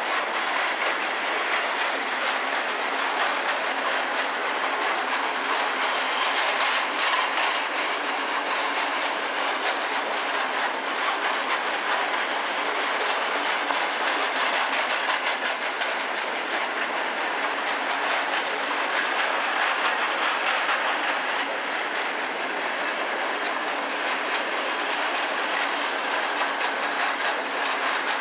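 Freight train of flat wagons loaded with concrete sleepers rolling past, the wheels running over the rails in a steady, even noise.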